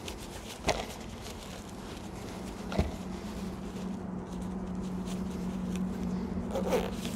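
Nylon tent carry bag being handled: fabric rustling, with two sharp knocks about a second and three seconds in, over a steady low hum.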